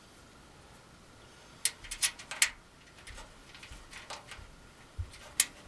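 Faint room tone, then from a little under two seconds in a run of sharp metallic clicks and clinks: small metal hardware and aluminium fire-table parts being handled and knocked together during assembly.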